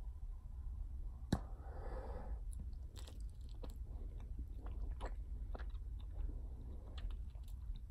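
A big bubble-gum bubble pops with a single sharp snap about a second in. The gum is then pulled back into the mouth and chewed, with a run of irregular clicking smacks.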